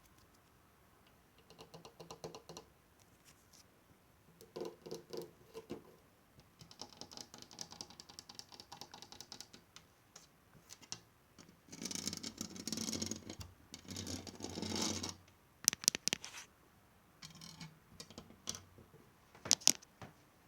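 ASMR trigger sounds made close to the microphone: short bursts of rapid tapping and scratching on objects, with a few sharp clicks near the end.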